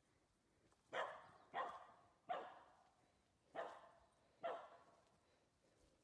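A dog barking five times, three barks close together and then two more.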